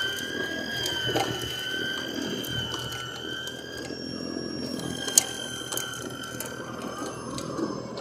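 EGO battery-powered two-stage snowblower running: a steady high electric-motor whine that drifts slightly in pitch, over a rough mechanical churn with scattered sharp clicks, one loud click about five seconds in.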